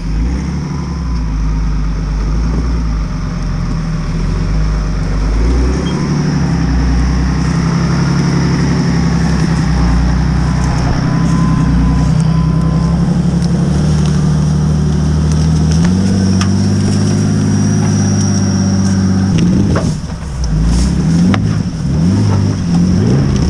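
Engine of a modified off-road 4x4 pickup working under load as it climbs a steep forest trail over logs. The revs are held steady and step up twice, then drop and rise unevenly near the end as the truck works over the obstacles.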